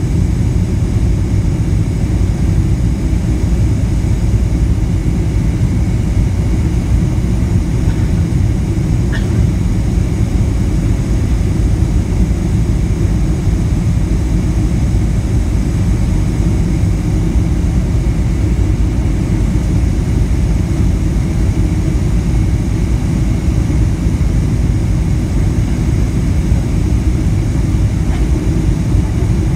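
Steady low roar of a Boeing 767-300's jet engines and rushing air, heard from inside the passenger cabin during the climb after takeoff.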